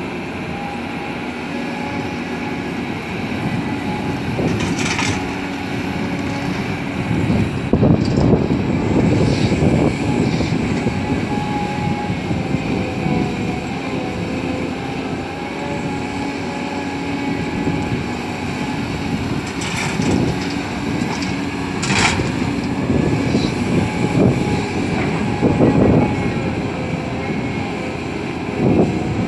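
CAT 320D excavator's diesel engine and hydraulics running under load while loading laterite soil into a dump truck, the engine swelling louder for a few seconds at a time. A few sharp metallic clanks are heard, one about five seconds in and two more past the twenty-second mark.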